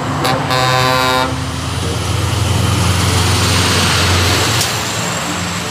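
A Scania semi-trailer truck gives a short air-horn blast about half a second in, then drives close past with its engine rumbling and tyres hissing, loudest in the middle of the pass.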